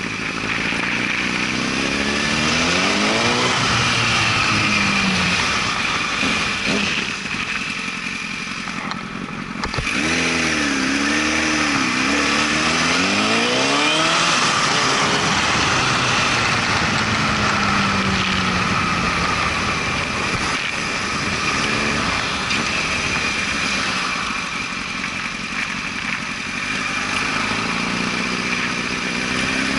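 2005 Honda CBR1000RR Fireblade's inline-four engine running under way, its pitch rising and falling several times as the rider accelerates, eases off and changes gear, over steady wind and road rush.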